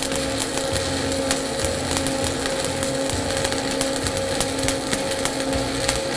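Electric welding arc crackling and sizzling steadily as a fillet bead is laid on a T-joint, with fine irregular crackles and a steady low hum underneath.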